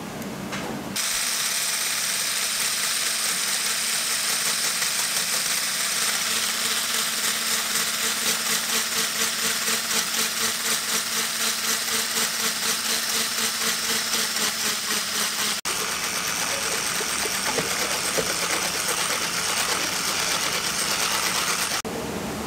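Electric mixer running steadily, its beaters whirring through frothy liquid in a stainless steel bowl with a fast flutter; it stops near the end.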